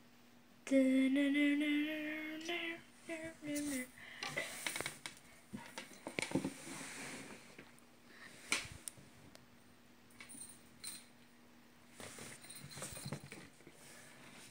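A person hums a short, wavering tune for about three seconds. After it comes soft rustling and light scuffing on a blanket where a wand cat toy is being played with.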